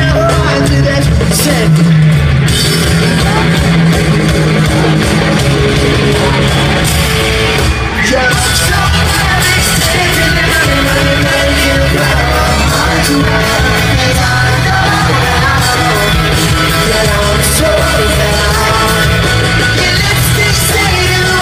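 Live pop-punk rock band playing loud and steady: electric guitars and drums with a lead voice singing.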